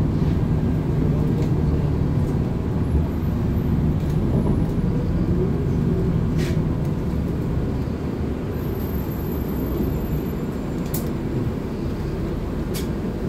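Cabin noise inside a Volgabus 4298.G4 city bus: a steady low rumble of engine and running gear, with an engine hum that fades out about halfway through, and a few light rattles.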